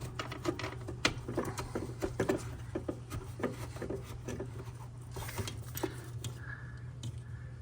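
Light, irregular clicks and taps of small parts and tools being handled during compressor wiring and reassembly work, over a steady low hum.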